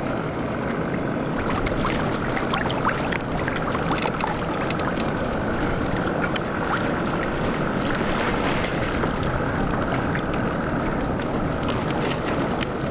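Steady wind and water noise around a fishing kayak, with scattered light clicks and ticks.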